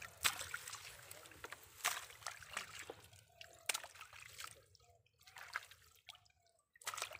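Hands rummaging through mud and plant debris in shallow water on a mesh fishing net, with small irregular splashes, drips and trickling water.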